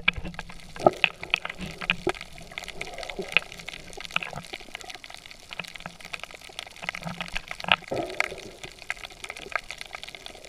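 Water sounds from a camera held underwater while snorkelling: sloshing and bubbling with many irregular sharp clicks, and bubble gurgles about a second in and again near the eight-second mark.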